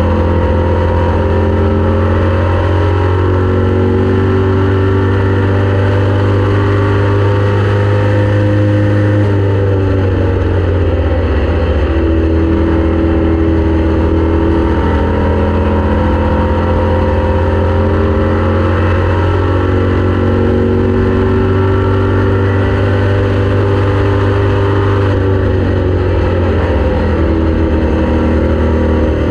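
Race car engine running hard at speed, loud and steady, its pitch easing off about nine seconds in and climbing again a few seconds later, with another small change near the end.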